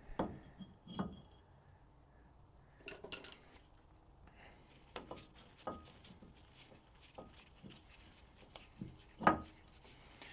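Light, scattered metallic clinks and knocks of a MK1 VW Rabbit front brake rotor being set onto the wheel hub and its retaining screw turned in with a screwdriver. The loudest clank comes about nine seconds in.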